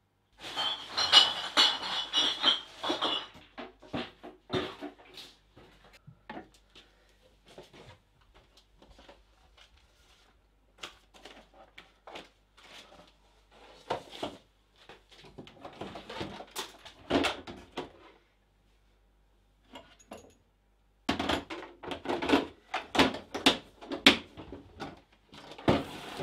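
Irregular knocks, clinks and clatter of hard objects being handled and set down, busiest in the first three seconds and again near the end, with quiet gaps between.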